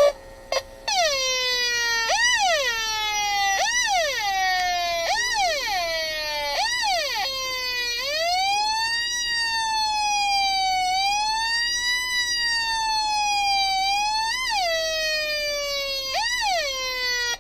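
Electronic transistor-multivibrator siren circuit imitating an American siren, through a speaker with a buzzy tone. It starts with quick yelps, each a sharp rise and slower fall about every second and a half. About eight seconds in it changes to slow rising-and-falling wails, then goes back to quick yelps near the end.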